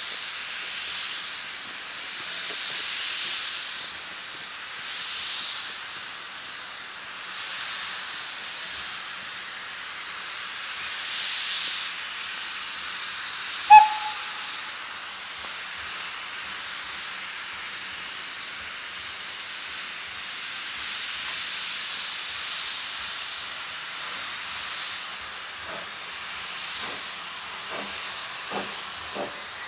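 Steam tank locomotive standing with a steady hiss of steam. It gives one short whistle toot about halfway through. Near the end it starts away, its exhaust chuffs coming quicker and louder.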